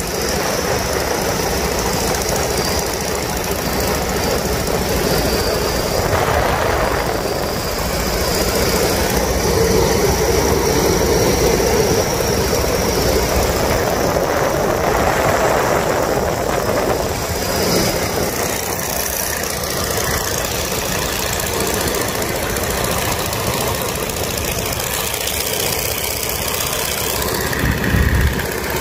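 Boeing Stearman biplane's radial engine running steadily in cruise flight, heard from the open cockpit with heavy wind rush over the microphone. There is a brief low thump near the end.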